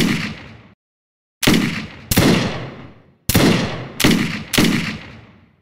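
A series of six single gunshots at uneven spacing, from about half a second to a second and a half apart, each with a long echoing tail.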